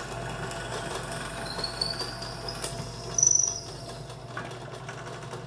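Harbor Freight 8-inch belt-driven bench drill press running steadily with a low motor hum while a twist drill bores into a block of wood. A high squeal rises in pitch as the bit cuts and is loudest a little over three seconds in; the press does not bog down.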